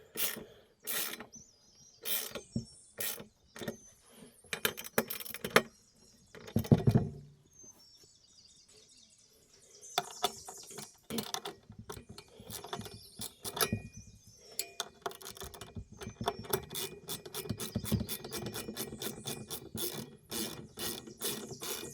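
Chainsaw mill's clamp bolts being tightened onto the chainsaw bar: runs of irregular clicks with a louder knock about a third of the way in, a few seconds' pause, then dense clicking again.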